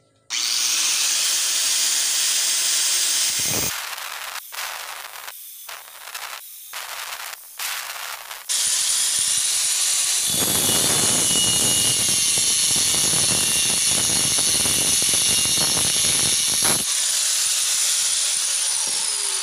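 Angle grinder with a thin cut-off disc slicing slits into the end of a thick-walled (6 mm) 3-inch steel pipe: a loud, hissing grind that comes in short bursts for a few seconds, then settles into a steady cut of about ten seconds.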